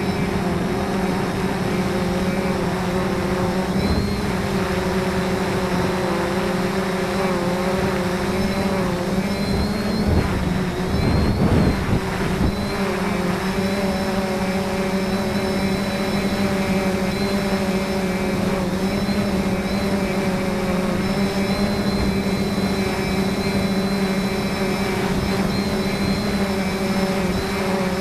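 Wind blowing steadily, with gusts buffeting the microphone about ten to thirteen seconds in, over a steady droning hum made of several held tones that waver slightly in pitch.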